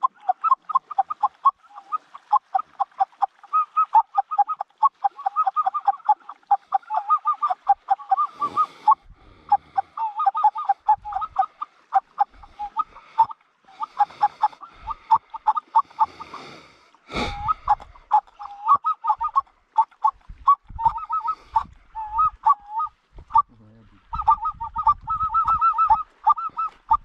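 Geese honking in quick overlapping runs of short calls, pausing briefly now and then. A single sharp click about seventeen seconds in.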